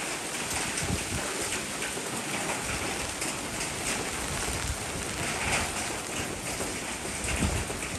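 Steady rain falling, an even patter with individual drops ticking through it and a couple of dull low thuds.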